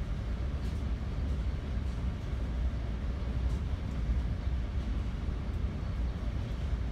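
Interior ride noise of a Bombardier MultiLevel cab car rolling along the track: a steady low rumble with a few faint clicks.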